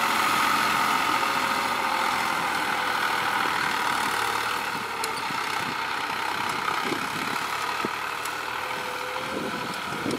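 Farm tractor's diesel engine running steadily while it pulls a disc plough through dry field soil, growing slightly fainter as it moves away.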